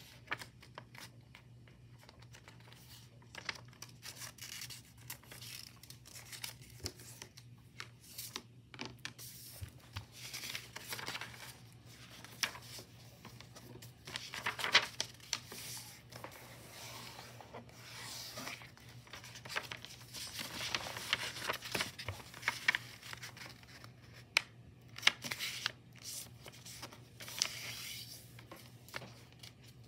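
A sheet of white paper being folded by hand on a desk to crease a grid: rustling and sliding, with sharp swishes as each fold is pressed flat, coming in spells with short pauses between.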